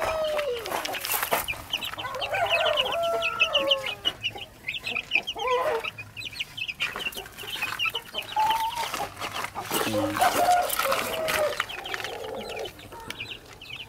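Aseel country chickens in a brooding pen: a brood of chicks peeping in quick, high, repeated calls, with a hen's lower clucks breaking in now and then.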